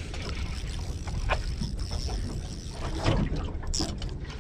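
Steady rumble of wind and water around a small fishing boat, with a few short knocks and clicks as a spinning rod and reel are picked up and handled.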